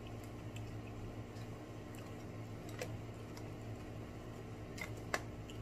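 Light scattered clicks and ticks of a lobster shell being picked over for the last bits of meat, with a few sharper clicks near the end, over a steady low hum.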